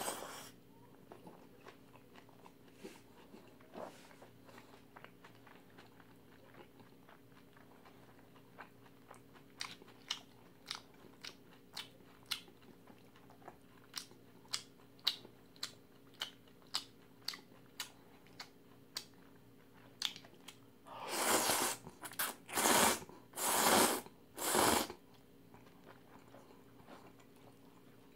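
Close-up eating sounds: wet chewing clicks, one or two a second, then four loud, longer slurps of jjamppong noodles a little after halfway, over a faint steady hum.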